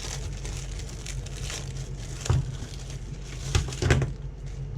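Plastic packaging crinkling and rustling as small accessories are handled and unwrapped, with a few sharper knocks past the middle.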